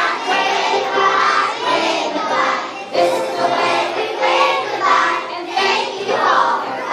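A group of young children singing together over recorded backing music.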